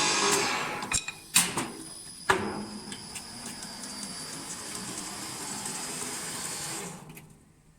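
An automatic woodturning machine: the cutting noise dies away in the first second, two sharp clacks follow (the loudest about a second and a half in and just after two seconds), then the machine runs with a steady hum and a thin high whine that fades out near the end.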